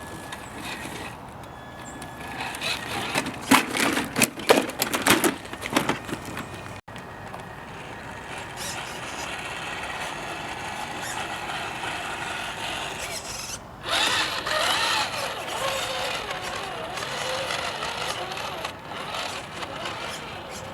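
Small electric RC crawler driving: motor and gearbox whining, the pitch rising and falling with the throttle in the second half. In the first few seconds there is a run of sharp clattering knocks.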